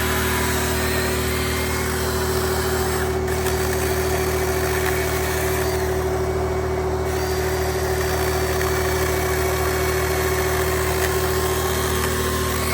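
A small motor running at a steady, unchanging speed, droning with several fixed pitches over a rushing noise.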